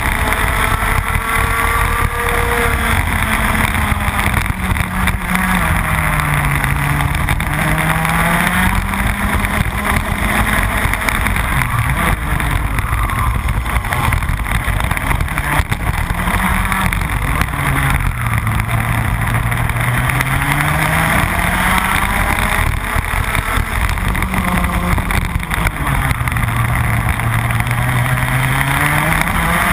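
Rotax Max 125cc single-cylinder two-stroke kart engine at racing speed, heard from the driver's seat. Its pitch drops and climbs again three times as the kart slows for the bends and accelerates out.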